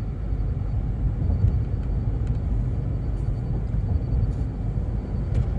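Steady low rumble of road and engine noise inside a moving SUV's cabin, with a few faint small clicks.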